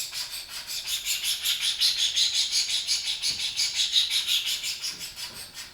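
Coarse sharpening stone stroked rapidly back and forth across a steel single-bevel broadhead blade, a rhythmic rasping at about four strokes a second that tails off near the end. It is grinding the bevel over to the other side of the blade.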